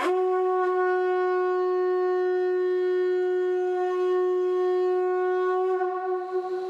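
Conch shell trumpet blown in one long, steady note lasting about six seconds, sliding up into pitch at the start and wavering as it fades near the end.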